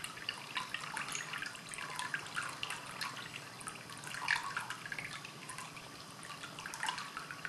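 Water trickling steadily from a handmade ceramic cat fountain, falling from four points of a thrown ceramic 'water flower' into the bowl, with many light, irregular drips and no splash.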